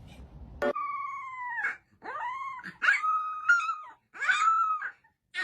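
A dog vocalizing in about four drawn-out, howl-like whines, each about a second long, its pitch sliding down and up between calls.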